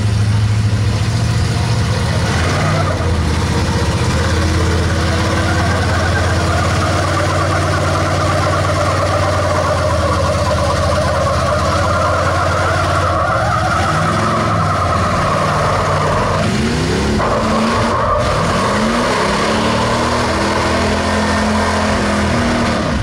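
Lifted mud truck engine running loud through a mud hole, then revved up and down several times in the second half.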